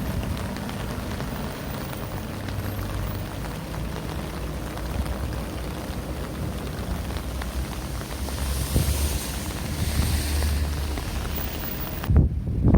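Steady outdoor street ambience: an even hiss over a low hum, the hiss swelling for a couple of seconds about nine seconds in. Just before the end, wind starts buffeting the microphone.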